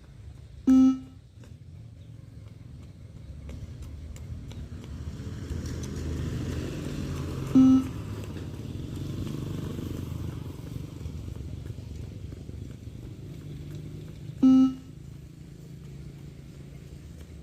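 Beep-test recording sounding its shuttle beeps: three short, low-pitched electronic beeps evenly spaced about seven seconds apart, each one the signal to reach the line for the next 20 m shuttle run, over low background noise.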